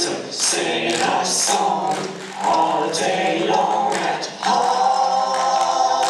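Layered a cappella voices singing held notes in harmony, the chords changing every second or so, with two short breaks a little past two seconds and just past four seconds.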